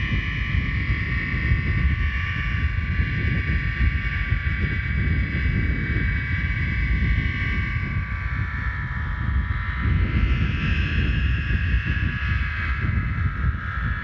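Homemade aeolian harp of plastic water pipe and fishing-line strings sounding in the wind: a cluster of high, steady overtone tones that swell, fade a little around the middle and swell again. Underneath is a low rumble of wind on the microphone.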